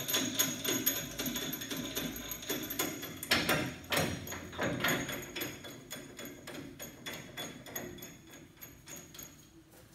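Irregular metallic clicks and clinks of hand work on a threaded rod and nut of a homemade coil-spring compressor, busiest in the first half and thinning out toward the end.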